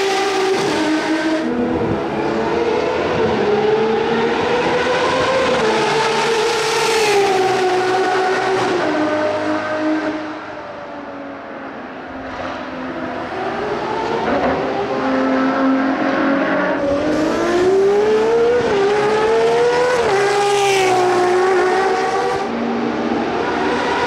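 Ferrari 599XX race car's V12 engine at speed on track. The engine note climbs and drops sharply at each upshift. It fades for a few seconds around the middle, then builds again as a car comes closer.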